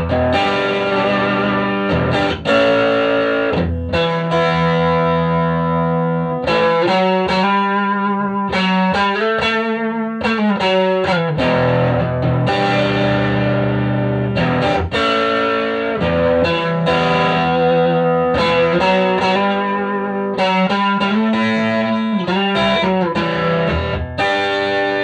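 Electric guitar played through a 1965 WEM Control ER15 valve amplifier head with push-pull EL84 output valves, playing chords and picked passages.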